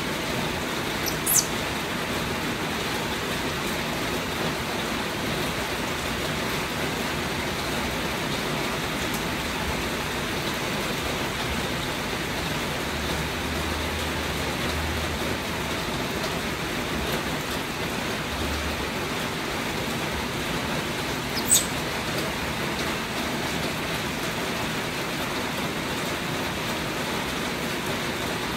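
Steady rain falling, an even hiss that does not let up. Two brief sharp clicks, one about a second in and one about two-thirds of the way through.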